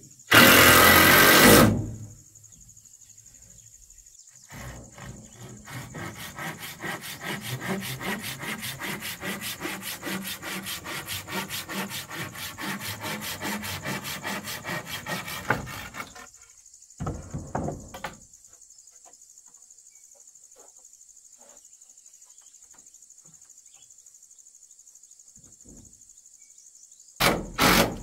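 A cordless drill drives a screw into a wooden wall board in a loud burst of about a second at the start. A handsaw then cuts a wooden plank in fast, even back-and-forth strokes for about eleven seconds. Near the end the drill runs again in two short bursts, over a steady high insect drone.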